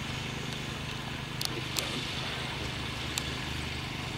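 A steady low hum of outdoor background noise, with three brief faint clicks.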